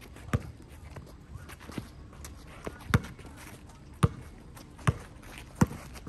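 Basketball bouncing on a court: six sharp thumps at uneven gaps of about a second, with fainter taps between them.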